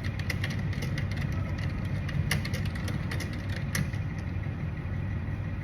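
Computer keyboard keys clicking in quick, irregular typing that stops about four seconds in, over a steady low hum.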